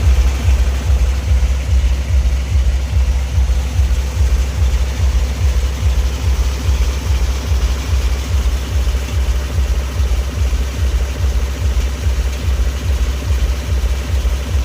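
Deep, heavy bass played through a DJ rig of twelve subwoofer cabinets during a sound check: a loud low rumble with an even pulse about three times a second.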